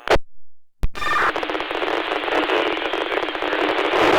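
Baofeng UV-5R scanner radio with a brief squelch burst and a click, then about three seconds of loud, even static from a keyed transmission that carries no voice, cutting off sharply at the end.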